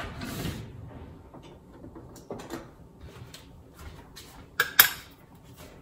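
Kitchen handling noises: a few soft knocks, then two sharp clacks in quick succession a little before the end.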